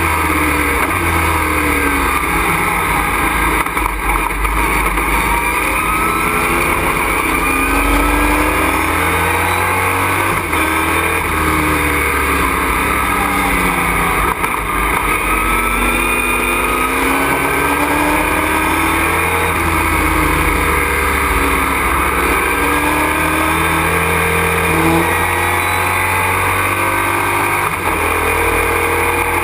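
Race truck's engine heard from inside the cockpit at full racing effort, its revs climbing and falling again and again through gear changes and corners, over constant loud road and wind noise.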